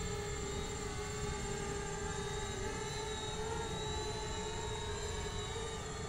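Small quadcopter drones (a DJI Spark and a Parrot Swing) flying: a steady propeller whine whose pitch wavers slightly, over a low rumble.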